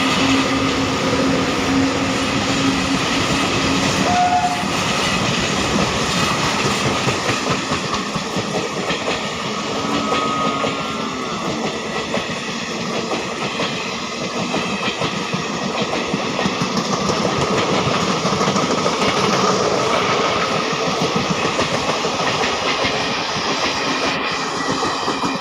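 An Indian Railways express train running past, with loud, steady rumbling and clickety-clack from its wheels on the rail joints, and a horn note held in the first few seconds. The sound stops abruptly at the end.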